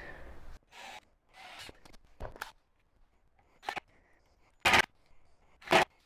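A series of short, sharp scraping or rubbing noises, roughly one a second, the two loudest near the end: workshop handling noise while a metal drawer slide is being fitted to a plywood drawer box.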